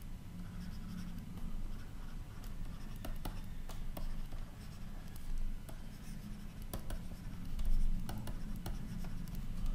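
Stylus writing on a tablet screen: a run of light taps and scratches as words are handwritten, thickest in the second half, over a steady low hum.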